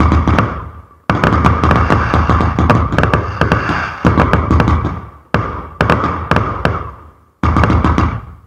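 A consumer fireworks battery (cake) firing: volleys of rapid sharp bangs and crackle that start suddenly and fade away over a second or so, about four of them in quick succession.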